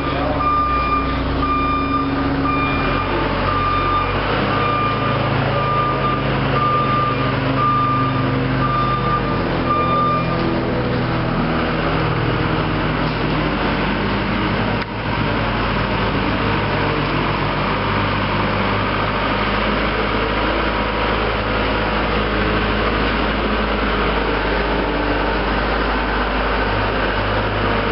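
A heavy working vehicle's engine runs steadily while its reversing alarm beeps a little over once a second for the first ten seconds or so, then stops; the engine keeps running after it.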